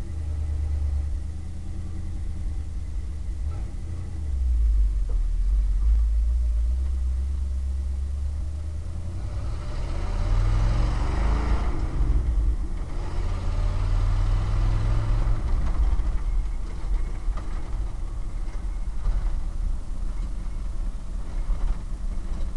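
1978 Ford F350 rollback truck's engine heard from inside the cab while driving: a steady low drone. About ten seconds in, the revs climb and drop back at a gear change, then climb again and settle.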